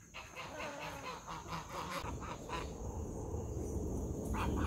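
Domestic geese honking in a quick run of short calls, then two more calls near the end. A low rumble comes in about two seconds in.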